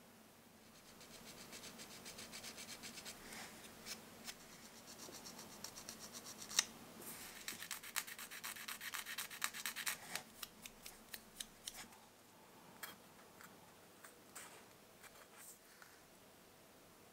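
Sanding pad rubbed quickly back and forth on the edge of a small styrene plastic model part, a fast run of rasping strokes, busiest a little past the middle. Toward the end the rubbing gives way to a few light clicks of the small part being handled.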